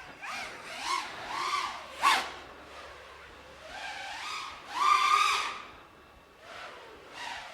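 5-inch FPV quadcopter's motors and props whining. The pitch rises and falls in repeated swells as the throttle is punched and eased, and the loudest surge comes about five seconds in.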